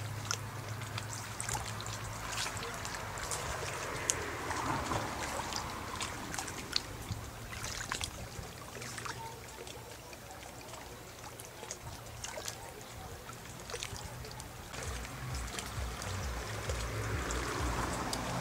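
Outdoor ambience: a faint low hum and a rushing noise that swells and fades twice, about four seconds in and again near the end, with many short, faint high ticks scattered through.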